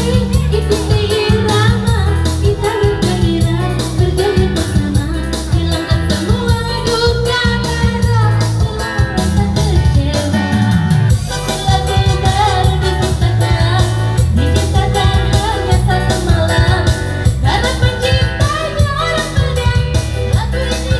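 Live joget dance music: a woman singing into a microphone over an electronic keyboard band backing with a steady, heavy beat.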